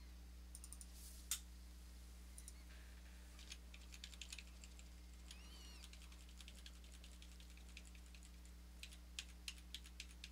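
Faint, scattered clicks of a computer keyboard and mouse, with several in quick succession near the end, over a low steady hum.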